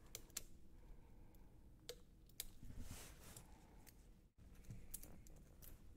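Near silence with a few faint, scattered clicks from a roll of Kapton tape being handled and its end picked loose. The sound cuts out completely for a moment a little past four seconds in.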